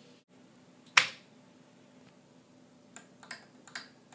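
A sharp click about a second in, then three lighter clicks a third of a second apart near the end: keys struck on a Commodore 128 keyboard as RUN is typed.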